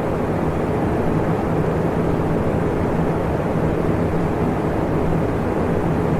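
Electric fan running steadily: an even rush of moving air with a low, constant hum underneath.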